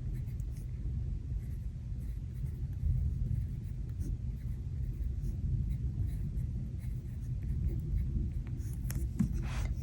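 Low, steady rumble of a thunderstorm ambience track, under faint small scratches and taps of paper and stickers being handled on a planner page, with a brief rustle near the end.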